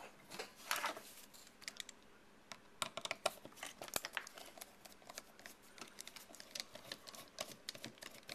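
Screwdriver turning a screw out of a hard drive's metal case: a faint run of irregular small clicks and scrapes.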